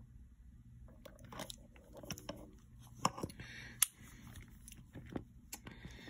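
Handling noise from a steel padlock with its key in the core, turned over in the hand: scattered small clicks and taps, a few sharper ones in the middle, and two short rustles.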